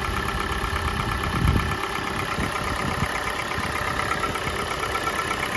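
Kia Sportage's G4NA four-cylinder petrol engine, high-mileage, idling cold and running fairly evenly now that its start-up knocks have died away. A fast, light ticking runs over the idle.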